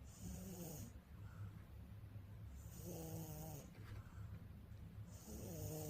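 A 10-month-old baby snoring in its sleep: three snores about two and a half seconds apart, each about a second long, a pitched rasp over breathy hiss.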